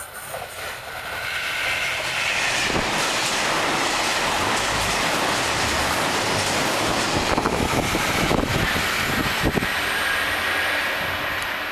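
Chizu Express HOT7000-series diesel express train passing through the station at speed, close to the platform. The rush of its passing builds about a second in, stays loud with wheels clattering over rail joints, and eases off near the end as the last car goes by.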